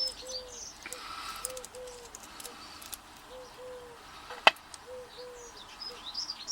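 A dove cooing over and over in short paired notes, with small birds chirping faintly at the start and near the end. A single sharp click about four and a half seconds in is the loudest sound.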